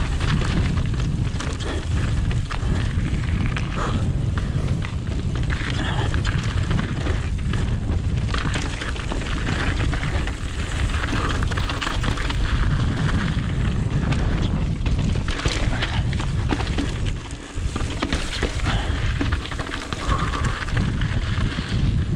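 Mountain bike descending a rocky gravel trail, heard from a chest-mounted camera: a continuous deep rumble of tyres over loose stones and rock, with many sharp rattles and knocks from the bike and a brief lull about seventeen seconds in.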